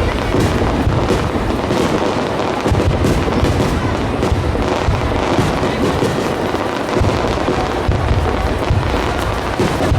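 Starmine fireworks barrage: a rapid, continuous run of aerial shell bursts, deep booms overlapping with sharp cracks, with no let-up.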